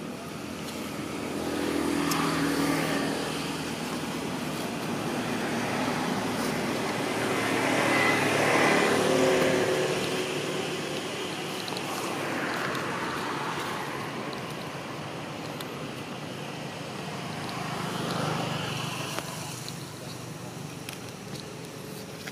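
Motor vehicles passing one after another, each swelling and fading over a few seconds; the loudest passes about eight to nine seconds in.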